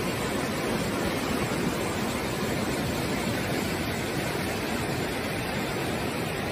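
Floodwater rushing in a steady torrent down a street.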